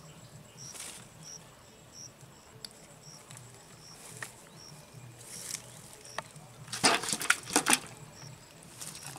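A catfish dropped into a metal bucket: about seven seconds in, a quick run of loud knocks and slaps as it lands and thrashes against the metal. A faint chirp repeats about every two-thirds of a second.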